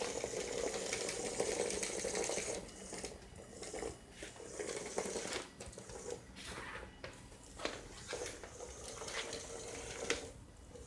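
Small electric gear motors of a Makeblock robot tank running with its tracks clattering, in several starts and stops.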